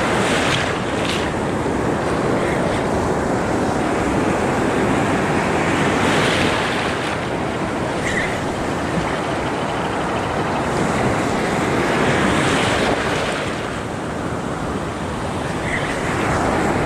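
Ocean surf washing in around the wader's legs, a continuous rush that swells louder every few seconds as waves break and run up the beach, with wind buffeting the microphone.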